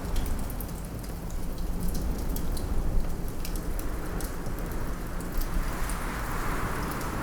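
Wood fire crackling in a fireplace, quick sharp pops scattered over a steady rush of wind that swells near the end.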